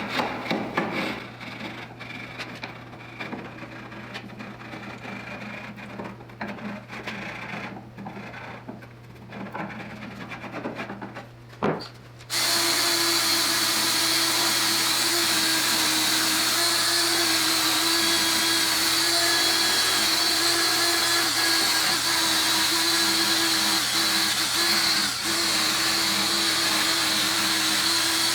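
A chisel scraping and knocking bark off the live edge of a black walnut slab, in irregular strokes. About twelve seconds in, a power tool fitted with a wire wheel starts abruptly and runs steadily with a whine, stripping the remaining bark and loose wood from the edge.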